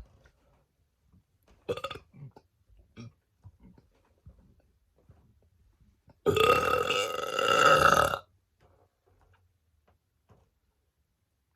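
A woman's deliberate burp: one long, loud burp of about two seconds a little past the middle, with a brief, much softer sound about two seconds in.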